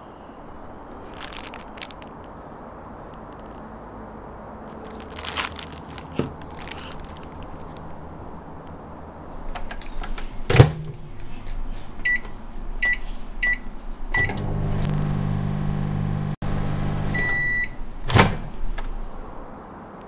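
Microwave oven in use: a few light clicks of handling, then the door shut with a loud clack, four short keypad beeps, the oven running with a steady low hum, a longer beep as the cycle ends, and the door latch popping open with another clack.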